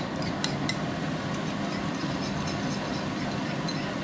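Leek and garlic frying in oil in a frying pan, a steady sizzle under a constant low hum. There are a few light clinks of a metal spoon against a ceramic bowl in the first second.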